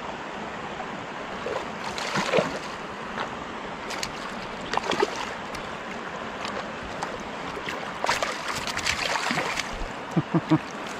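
Hooked brown trout splashing and thrashing at the surface of a stream during the fight, over the steady rush of flowing water. The splashes come in several bursts, the busiest stretch about eight to nine and a half seconds in, and a few brief sharp sounds follow near the end as the fish is netted.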